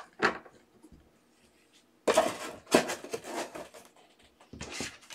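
Rigid plastic trading-card holders being handled and shuffled in the hands, sliding and clacking against one another. The sound comes in a few short spells of scraping and clicking, the longest about two seconds in.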